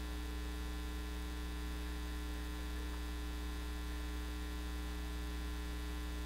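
Steady electrical mains hum: a constant low buzz with a few faint higher overtones, unchanging throughout.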